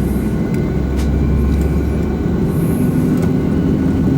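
Steady low rumble and hum inside the cabin of a Boeing 757-200 on the ground during pushback and engine start, with a few faint clicks.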